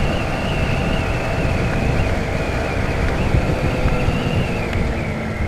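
Honda CBR150R single-cylinder engine running at cruising speed, with wind buffeting the microphone. A high engine whine holds steady, then drops slightly in pitch near the end as the bike eases off.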